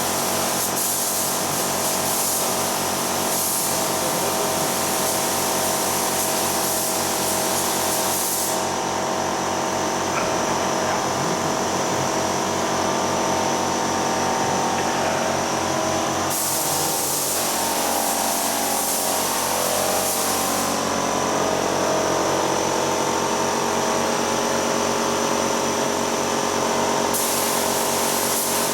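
Compressed-air tool, likely a spray gun, hissing in long on-off stretches over a steadily running motor with a fixed hum.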